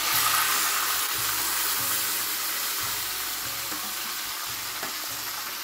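Wet ground masala gravy tipped into hot oil in an iron kadhai, sizzling. The sizzle starts suddenly and loudly, then slowly dies down.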